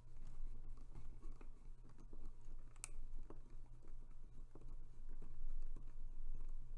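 Precision screwdriver driving a tiny screw into a plastic model part: light, scattered clicks and ticks of the metal tip turning in the screw head, with one sharper click about three seconds in, over a steady low hum.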